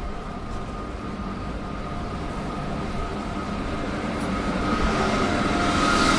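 A train on the rails, a steady rumble with a faint whine, growing steadily louder, with a hiss building over the last couple of seconds.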